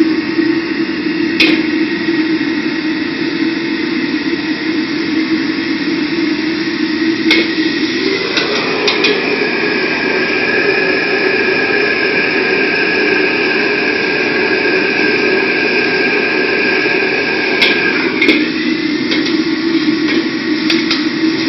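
Commercial gas wok range running: a steady loud roar of the burner and extraction fan. Its tone shifts about eight seconds in and returns about ten seconds later, and a few sharp metal clanks break through.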